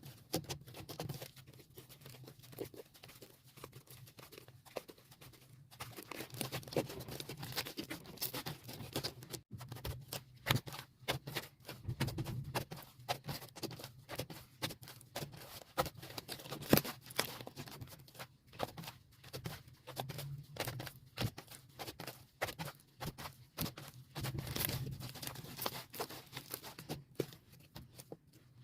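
Soft white slime being squeezed and stretched by hand: a dense, irregular run of sticky clicks, pops and crackles, played back at double speed.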